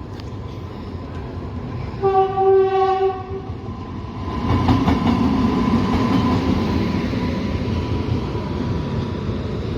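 A train horn sounds once about two seconds in, a single steady note lasting about a second and a half. Then, about four and a half seconds in, a train's low running rumble swells up and carries on steadily.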